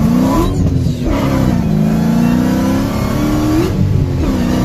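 Car engine accelerating hard under full throttle, heard from inside the cabin. Its pitch climbs, drops sharply on an upshift about half a second in, climbs again for about three seconds, and drops on a second upshift near the end.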